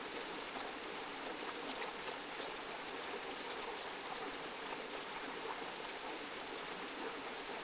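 A stream of water running with a steady rush.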